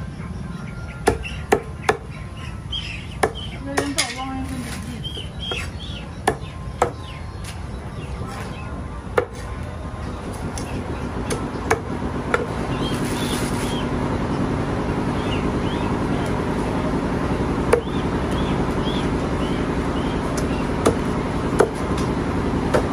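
Meat cleaver chopping raw whole chickens into pieces on a wooden chopping block: about a dozen sharp chops at an irregular pace. A steady background hum grows louder about halfway through.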